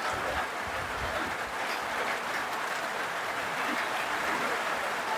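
Rain falling: a steady, even hiss with a few faint drop ticks.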